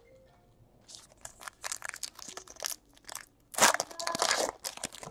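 Foil trading-card pack wrapper crinkling and crackling as it is handled and opened, starting about a second in and loudest around three and a half to four and a half seconds in.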